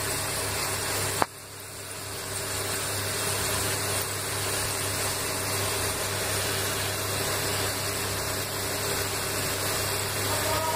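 Cauliflower pieces in chilli masala batter deep-frying in hot oil, a steady sizzle with a low steady hum beneath it. A single sharp click about a second in.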